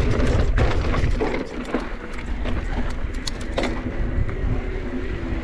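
Specialized Turbo Levo electric mountain bike rolling over rocky singletrack: tyres crunching on rock and dirt and the bike rattling, with many sharp clicks and knocks over a steady low rumble.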